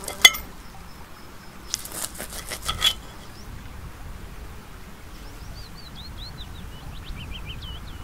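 Metal knife and fork clicking and scraping against a plate while a steak is cut: one sharp click just after the start and a short cluster of clicks about two to three seconds in. Near the end a small songbird sings a quick twittering phrase over a steady low background rumble.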